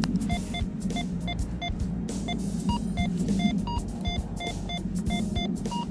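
Minelab GO-FIND metal detector beeping as its coil is swept over a buried target: short beeps at one mid pitch, about four a second, with a higher beep now and then. The repeated beeping is the detector's signal of a good target just under the surface.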